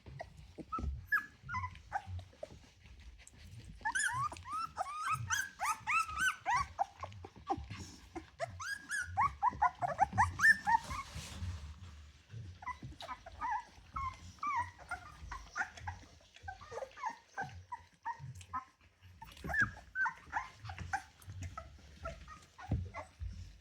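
A litter of three-week-old Rottweiler puppies squeaking and whining: many short, high calls that overlap. They are busiest from about four to eleven seconds in, then thinner.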